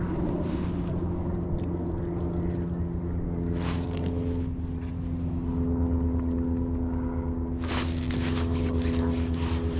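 A motor's steady low drone, its pitch shifting slightly about three seconds in. Near the end, rapid clicking and whirring from a baitcasting reel being cranked.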